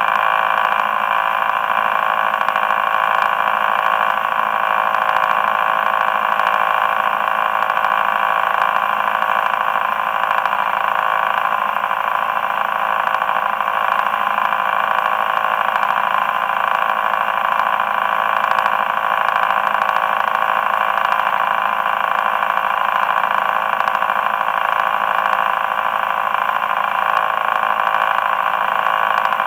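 Motorboat engine running steadily with the boat under way, an unbroken even hum with no change in pitch.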